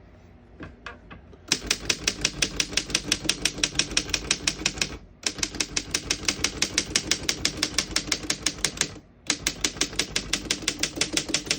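A 1926 Underwood No.5 manual desktop typewriter being typed on quickly, its typebars striking the platen at about eight keystrokes a second. The typing comes in three runs with two brief pauses, starting a second and a half in.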